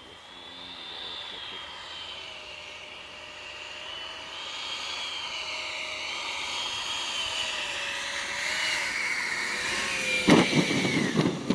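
Taiwan Tornado 120 mm electric ducted fan in an RC model jet, a high wavering whine that grows steadily louder as the jet flies in low. About ten seconds in the jet comes down on the grass and loud rough thumping noise takes over while the whine tails off.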